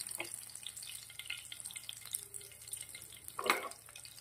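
Hot oil lightly sizzling and crackling in a non-stick kadai as fried green chillies are lifted out with metal tongs, with one brief louder clatter of the tongs about three and a half seconds in.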